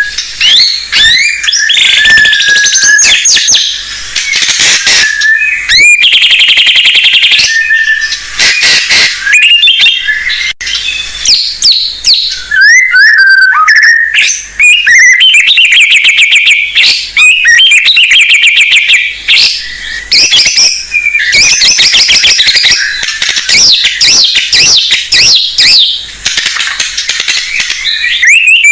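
White-rumped shama singing loudly and without pause, a piebald 'blorok' bird. Its song is a varied run of gliding whistles, fast trills and sharp clicking chatter: an actively singing ('gacor') shama showing off its repertoire of phrases ('isian').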